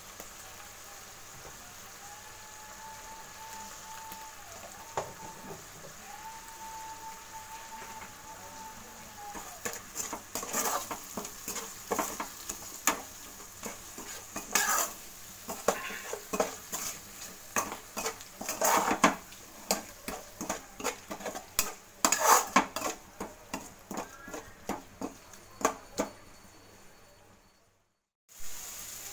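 Spiced masala sizzling in hot oil in a kadhai. From about ten seconds in, a metal spatula scrapes and clicks against the pan as the masala is stirred.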